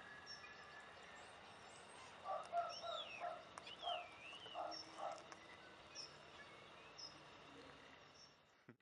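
Faint bird calls: a run of short, clipped notes from about two seconds in, with whistled glides rising and falling over them. A few thin high chirps follow.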